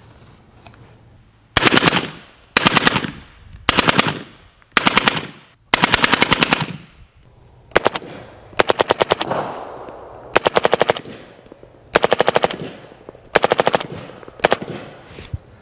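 Suppressed short-barrelled AR rifle in 300 Blackout, firing subsonic rounds through a Rugged Razor 7.62 suppressor in about eleven short fully automatic bursts of several rapid shots each. Each burst trails off in a short echo.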